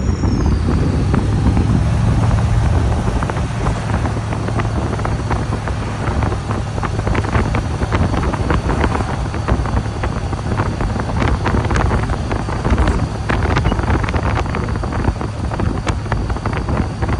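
Steady low hum and rumble with wind buffeting the microphone and many scattered small clicks, as from a running vehicle.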